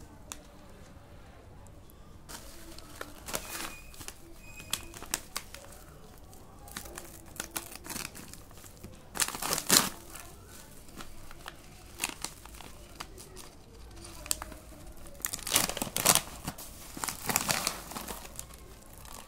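Plastic packaging crinkling and rustling as zip-lock pouches and a courier mailer bag are handled, in short irregular bursts that grow louder about halfway through and again near the end.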